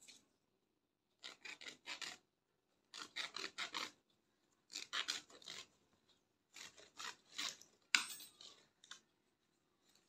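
Coarse jute sacking rasping as it is worked and pulled apart by hand, in five bursts of quick scratchy strokes, with one sharper crackle about eight seconds in.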